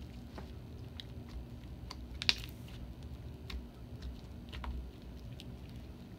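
Sticky white slime being kneaded and pulled apart between hands, giving a few scattered small clicks and pops, the sharpest about two seconds in. The slime is still sticky and has not yet fully come together.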